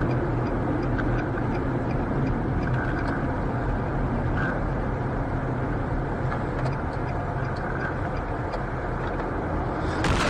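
Car driving, with steady engine and road noise heard from inside the cabin through a dashcam microphone and a few faint ticks. Just before the end it turns louder and brighter.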